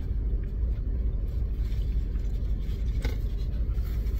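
Low, steady rumble inside a car cabin from the car idling while parked, with a short rustle about three seconds in.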